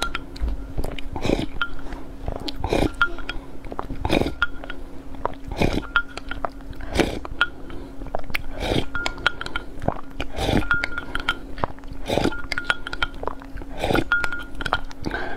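Slurping sips of thick corn porridge drunk from a glass mug, one sip about every second and a half, with light clinks of glass.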